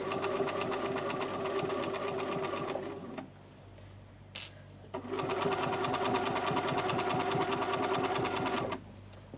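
Domestic sewing machine stitching felt at a steady speed, its motor humming and needle clattering rapidly, in two runs of about three and four seconds with a short stop between them, likely as the fabric is turned at a corner.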